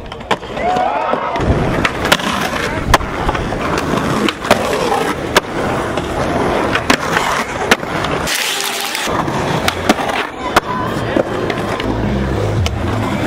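Skateboard wheels rolling on a concrete skatepark, broken by many sharp cracks of tails popping and boards landing.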